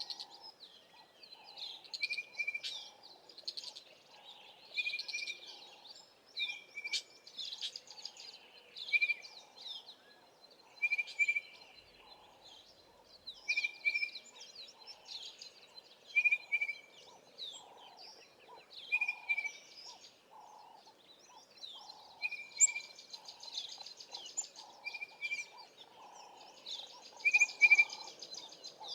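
Mixed wild birdsong from bush birds. One bird repeats a short, sharp call about every two seconds, with other birds chirping higher around it and a softer, lower repeated note beneath.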